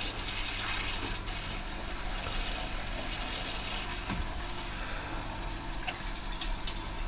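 Central heating circulating pump running with a steady rush of water and air through it while its air is bled with a screwdriver, a sign of an airlock in the heating system.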